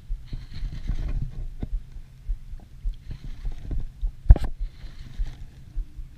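Bay water sloshing and lapping around a wader standing in it, over a low rumble on the microphone, in short splashy spells. A single sharp knock a little past four seconds in, as hands handle a baitcasting reel right by the camera.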